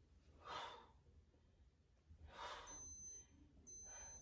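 A woman's hard exhales, three of them, as she does crunches. From about two and a half seconds in, a high-pitched electronic beep sounds on and off roughly once a second.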